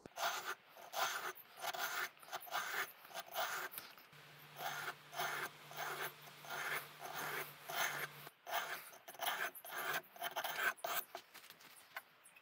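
Steel secateur blade from a pair of Fiskars P94 bypass pruners being pushed and rotated along an oilstone, a repeated scraping stroke about two to three times a second. The strokes are honing out chips and a rolled-over edge.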